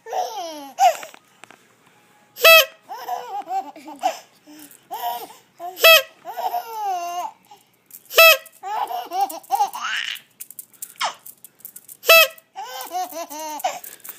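A horn honks four times, one short blast about every three seconds, and a baby laughs hard after each honk.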